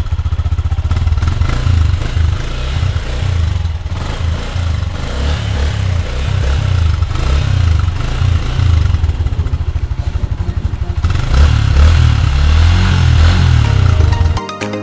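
Yamaha Sniper 150's single-cylinder four-stroke engine running through a Mody5 power pipe aftermarket exhaust, heard close at the tailpipe: a deep, pulsing idle, revved up a few times about two-thirds through, then cut off shortly before the end.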